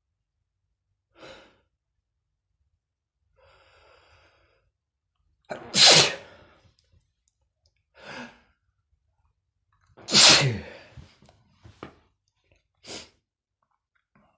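A man sneezing: two loud sneezes about six and ten seconds in, with shorter, quieter bursts of breath before, between and after them.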